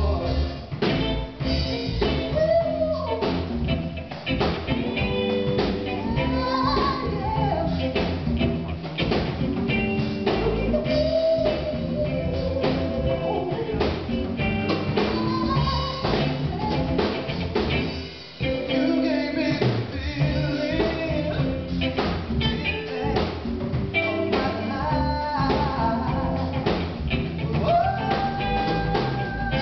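Live band playing a bluesy jam: a drum kit keeps time under guitar, with a sliding lead melody over the top.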